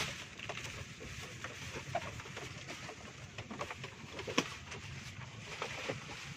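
Thin plastic bag holding fish crinkling and rustling as it is lifted and hooked onto a hanging scale, with scattered small clicks and one sharper click a little past the middle.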